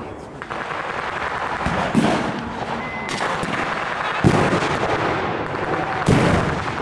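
Blank gunfire in a WWII battle reenactment: several sharp shots at irregular intervals, each trailing off in a rumbling echo, with three louder reports standing out.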